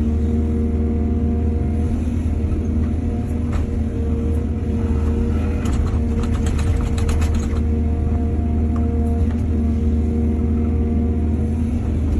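Excavator diesel engine running steadily, with a burst of rattling and clanking from about five to seven and a half seconds in.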